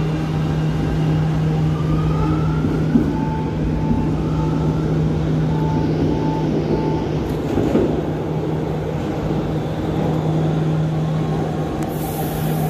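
Subway trains in an underground station: a steady electric hum, with a rising motor whine twice as a train moves and a run of short, evenly spaced beeps in the middle. A brief hiss comes near the end.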